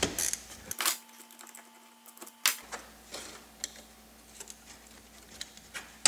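Screwdriver backing a Phillips screw out of a Honda CR-V door latch assembly, with handling clicks of its metal and plastic parts. A few sharp clicks come in the first couple of seconds, the strongest about two and a half seconds in, then faint ticks.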